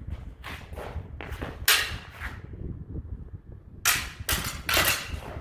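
Steel HEMA sabre blades clashing in sparring: two quick flurries of sharp metallic clacks, the loudest strike about a second and a half in, over a low steady rumble.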